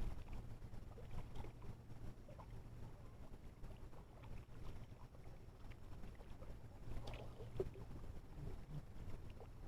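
Faint river-side sound of a small boat on the water: a low steady rumble with scattered small knocks and clicks.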